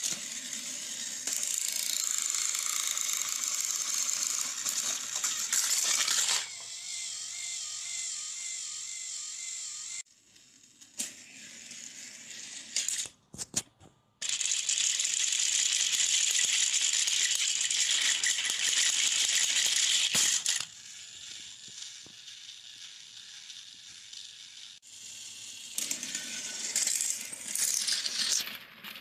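Battery-powered toy train engines running on plastic track, their small motors and gears whirring with a rattle. There are two loud stretches with softer running between, and a near-quiet gap in the middle broken by a few sharp clicks.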